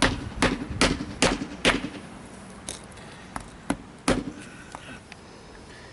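Hammer striking five quick, evenly spaced blows, driving a bushing into the eye of a new steering stabilizer, followed by a few lighter tool clinks.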